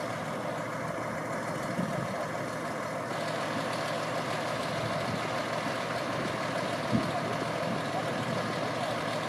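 Fire engine idling steadily, with a single short knock about seven seconds in.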